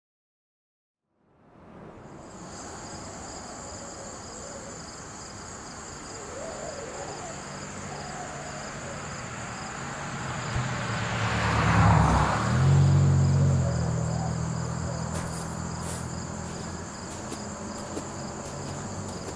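Insects buzzing steadily in two high, constant tones over open-air ambience, starting after about a second of silence. A vehicle passes on the road, swelling to the loudest point about twelve seconds in and then fading.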